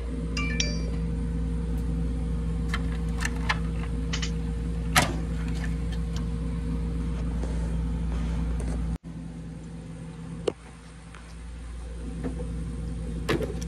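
Steady low machine hum with scattered sharp clicks and clacks of plastic wiring connectors being worked loose from a vending machine's control board, the loudest click about five seconds in. The hum drops off abruptly about two-thirds in and builds back up.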